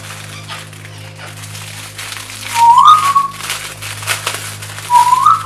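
A person whistling short phrases that rise in pitch, the first about two and a half seconds in and another near the end. Under it, the crinkle of a plastic bag of spare propellers being handled.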